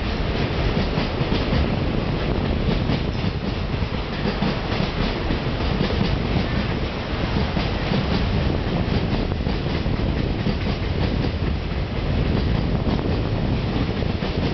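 Freight train wagons rolling past: a steady rumble of steel wheels on rail, with the clickety-clack of wheels crossing rail joints.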